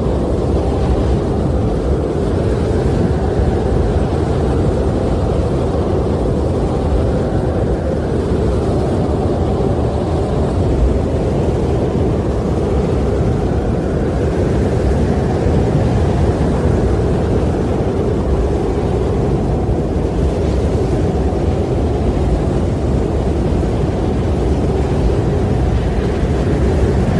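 Steady rushing wind with a deep rumble, swelling and easing every few seconds as gusts come and go.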